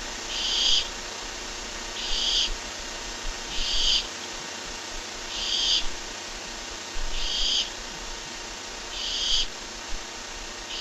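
Barn owl giving short, hissing screech calls, each about half a second long and repeated roughly every one and a half seconds, over the steady hiss and hum of the nest-cam microphone.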